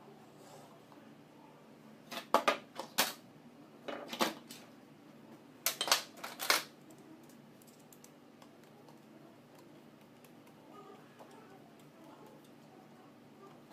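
Quick clicking and clattering of tools and small parts being handled on an alternator's rectifier and brush holder, in three short bursts about two, four and six seconds in. Between and after them only a faint steady hum.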